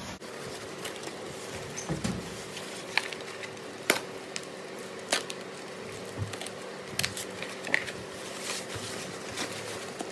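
Handling noise from unwrapping a packed battery: a cloth bag and a foam packing sheet rustling and crinkling, with scissors cutting through the bag and scattered sharp clicks and ticks. A faint steady hum runs underneath.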